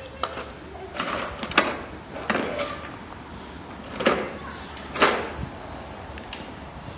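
Plastic toddler ride-on trike rolling over rough concrete: a low rumble broken by about six sharp plastic knocks and clatters, spaced irregularly over the first five seconds, as the trike bumps along.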